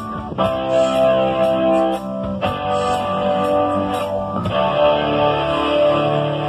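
Live rock band playing through a PA: electric guitar chords ring out and change every second or so over drums with cymbal hits.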